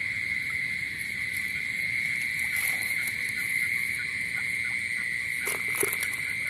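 Steady night-time insect chorus, a continuous high-pitched drone. Near the end there are a few brief knocks or splashes.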